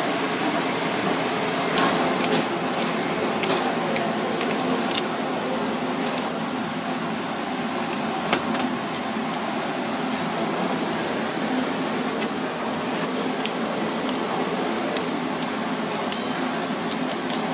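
Steady mechanical background whirr and hiss with scattered light clicks and knocks; a slightly louder knock comes about eight seconds in.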